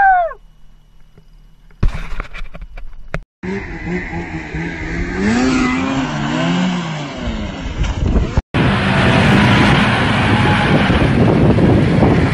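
A scream trails off, then snowmobile engines: one revving up and down, and after a cut a snowmobile engine running loudly and steadily.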